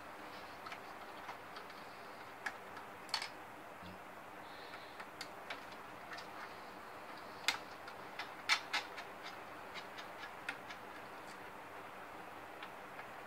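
Scattered light clicks and taps, irregular and a few sharper ones about 3, 7.5 and 8.5 seconds in, from the projector's plastic housing and parts being handled while its internal screws are worked loose.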